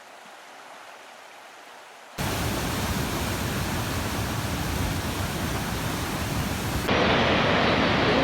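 Steady rushing water of a waterfall that changes abruptly at clip cuts: fainter at first, much louder from about two seconds in, and louder again near the end.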